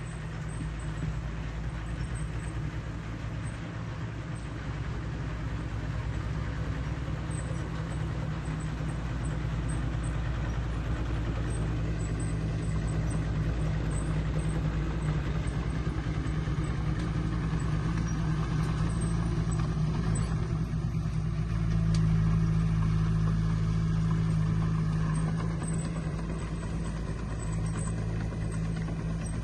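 Heavy earthmoving machine's diesel engine running with a steady low drone, growing louder about two-thirds of the way through and easing off near the end.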